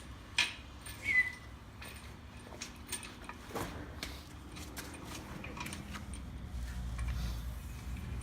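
Scattered light metal clinks and knocks as a spare tire and its lug nuts are handled at a car's wheel hub, with a short squeak about a second in.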